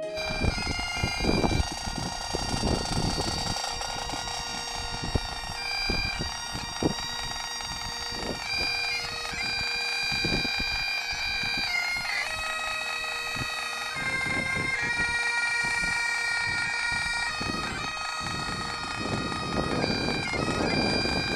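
Bagpipes playing a slow tune of held notes over a steady drone, with gusts of wind buffeting the microphone.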